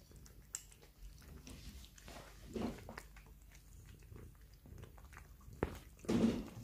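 Three cats eating tuna from one shared plate: wet chewing and biting with small clicks, and two louder mouthfuls about two and a half and six seconds in.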